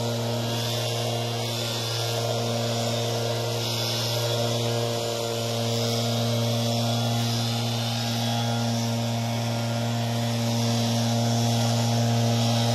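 Gas backpack leaf blowers running steadily: a constant engine drone over a loud rush of air, rising slightly near the end.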